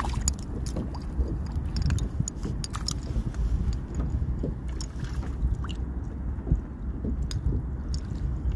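Steady low rumble of wind on the microphone and water lapping against a kayak, with scattered small clicks and knocks from the boat and fishing gear.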